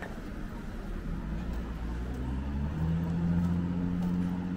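A motor vehicle's engine running, rising a little in pitch and getting louder about two seconds in, then holding a steady tone.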